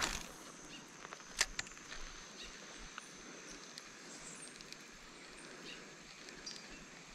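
A spinning rod and reel being cast and fished: a brief swish at the start and a single sharp click about a second and a half in. Underneath runs a steady high-pitched insect whine.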